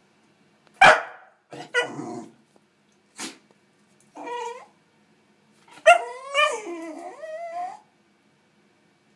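Jack Russell terrier sneezing: a loud sharp sneeze about a second in and a shorter one near three seconds. Then high whining calls from the dog, a short one near four seconds and a longer wavering one near the end.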